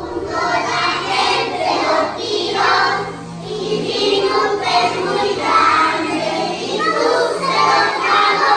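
A group of young children singing together, loud and lively.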